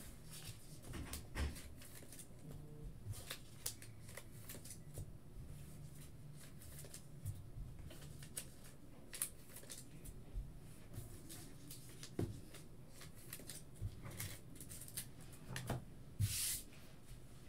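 Trading cards being handled and gathered on a tabletop: faint, scattered light clicks and taps, with a brief rustle near the end.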